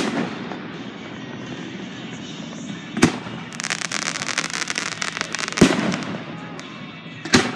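Aerial fireworks shells bursting with sharp bangs, one about three seconds in, one after five and a half seconds and one near the end. Between the first two of these there is a stretch of rapid, dense crackling.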